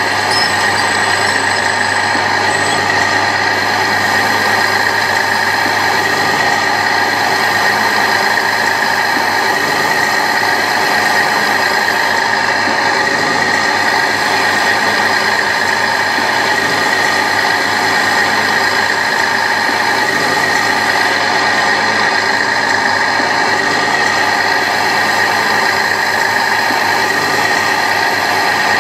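Radio-controlled scale excavator and bulldozer running, a steady engine-like drone with a high whine that does not change.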